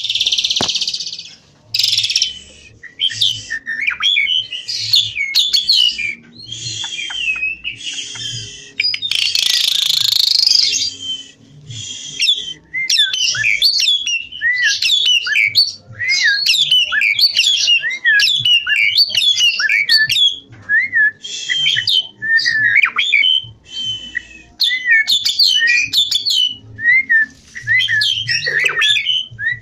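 Javan pied starling singing continuously and vigorously: a varied run of scratchy, rasping bursts mixed with quick sliding whistles.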